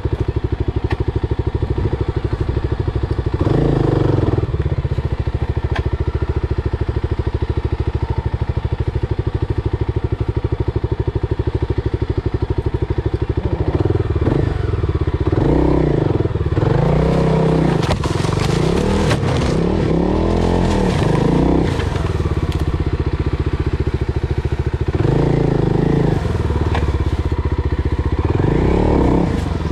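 FPV racing quadcopter's motors and propellers buzzing steadily. From about halfway through, the pitch repeatedly swells and drops with quick throttle changes.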